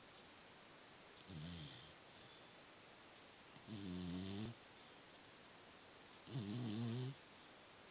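Snoring: three snores about two and a half seconds apart, each lasting under a second, the first one fainter than the other two.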